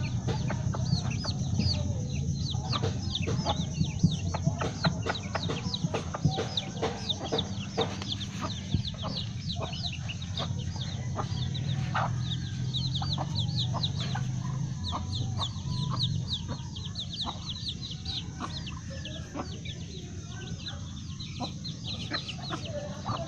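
A brood of chicks peeping continuously in rapid, high, falling chirps, several a second, as they are fed, with a mother hen among them. A low steady hum runs underneath.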